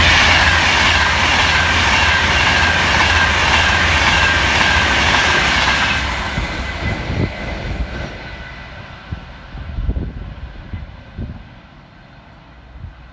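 A Class 390 Pendolino electric train passing through at speed: a rush of wheel and air noise with a whine that slowly falls in pitch. It is loud for about six seconds, then dies away as the train recedes.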